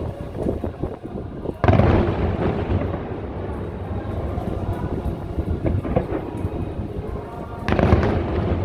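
Large aerial fireworks shells bursting with deep booms, twice: once about two seconds in and again near the end, each followed by a long rolling rumble. Music plays faintly underneath.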